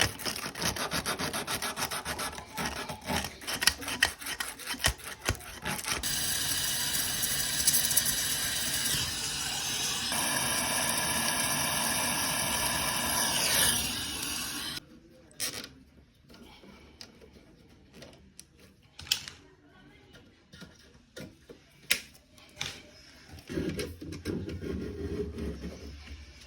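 Hand work on metal refrigeration tubing: rapid rubbing, filing-like strokes for about six seconds. Then a steady noise with a rising whine cuts off sharply about fourteen seconds in, followed by scattered clicks and knocks.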